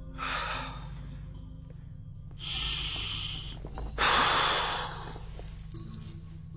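A man breathing out heavily three times, the last breath, about four seconds in, the loudest.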